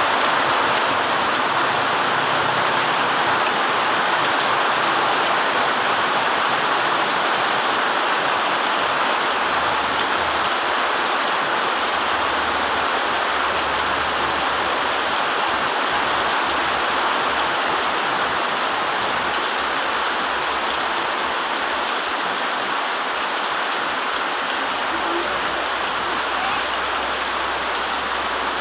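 Heavy rain pouring steadily, an even, dense hiss with no breaks.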